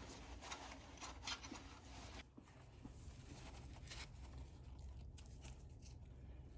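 Faint rustling and rubbing of a paper shop towel and nitrile-gloved hands while the fuel line nut is unthreaded by hand from a high-pressure fuel pump, with a few light clicks in the first two seconds.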